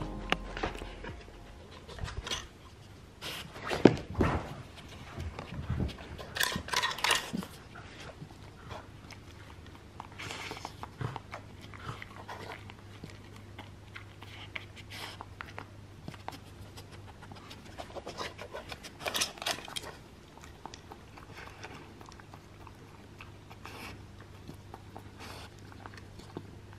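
A dog sniffing and nosing at a wooden treat-puzzle toy for the treats hidden in it: irregular sniffs and panting, with short wooden clacks and knocks as the pieces are shifted, the loudest about four seconds in, and some chewing.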